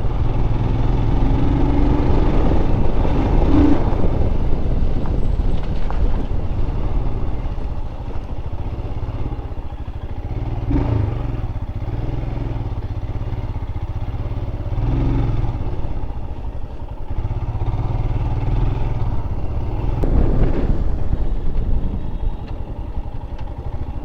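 Motorcycle engine running while being ridden: a steady low rumble that swells and eases through the ride.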